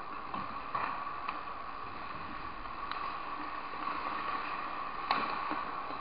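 Ice hockey play: a steady hiss of skates on the ice over the arena's hum, with scattered sharp clacks of sticks and puck, the loudest a little after five seconds in.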